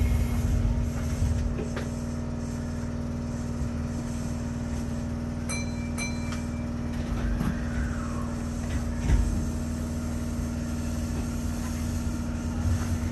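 Kintetsu express train running, heard from inside the car: a steady low rumble with a constant hum. About halfway through come two short ringing tones in quick succession, followed by a faint tone that rises and falls.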